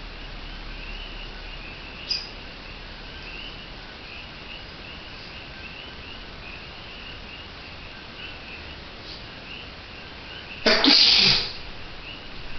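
A man sneezes once, loudly, near the end. Before it there is a long stretch of faint background with soft repeated chirping.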